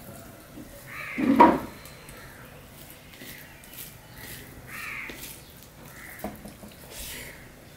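Crows cawing several times, the loudest call about a second in and fainter ones spaced a second or so apart, over soft squishing of rice and curry being mixed by hand on a steel plate.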